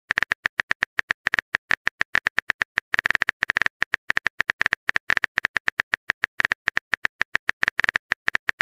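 Phone-keyboard typing sound effect: a rapid, uneven run of short tapping clicks, about ten a second, as a text message is typed out.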